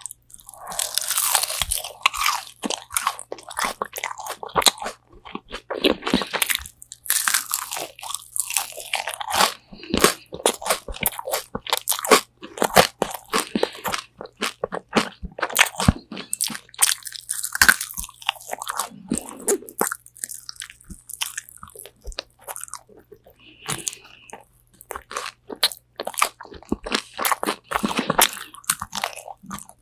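Close-miked eating of crispy spicy Korean fried chicken wings: repeated crunching bites and chewing.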